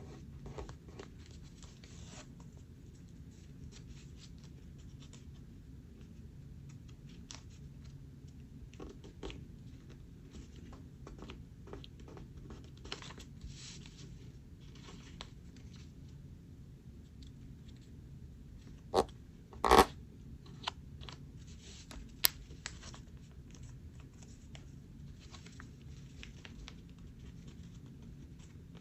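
A sheet of paper being folded and creased by hand: soft rustles and scratchy strokes as it is turned and pressed flat. A few sharp, louder snaps or taps come about two-thirds of the way through.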